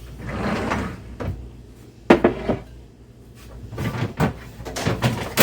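Kitchen handling sounds: a scraping swell, then a few sharp hard clacks and knocks, like a cupboard or appliance parts being opened, moved and set down. The loudest clack comes near the end.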